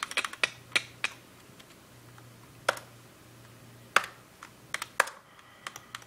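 Computer keyboard keys pressed one at a time, each a sharp click: a quick run of presses in the first second, then single presses about a second apart. A faint steady low hum lies underneath.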